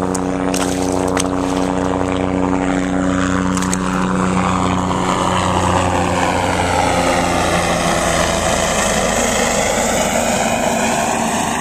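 Helicopter flying low overhead: a loud, steady drone of rotor and engine that sweeps down and back up as it passes over.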